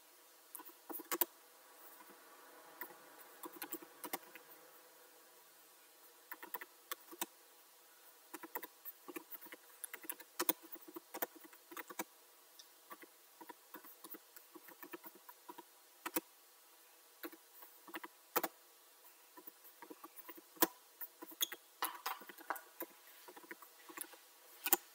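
Computer keyboard being typed on: irregular keystroke clicks, several a second with short pauses between bursts.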